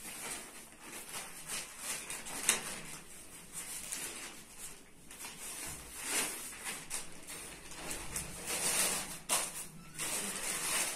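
Rustling and swishing of a large flour-dusted sheet being lifted, shaken out and folded over a bowl of dough, rising and falling in several swells.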